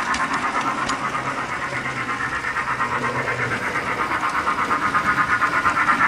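Built-in steam sound of a DC HO-scale Thomas & Friends model locomotive: rapid, even chuffs through its small onboard speaker, about seven a second. The chuffing softens in the middle and comes back louder near the end.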